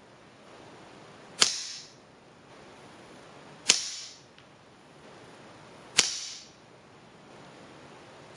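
Shots from a shrouded FX Revolution .22 semi-automatic PCP air rifle, fired one after another about every two and a quarter seconds: four sharp reports, the last right at the end, each with a short fading tail. The report is quieter than the crack of an unshrouded gun.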